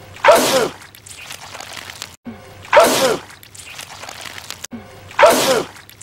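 A man sneezing loudly, the same sneeze repeated three times at even intervals about two and a half seconds apart; each is a short, sharp burst with a falling vocal 'choo'.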